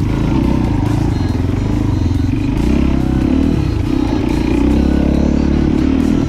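Motorcycle engine running with its revs rising and falling, back in running order after the bike got into the river.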